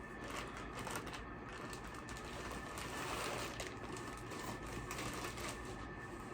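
Faint rustling and light clicks of comic books being handled in their plastic bags and boards.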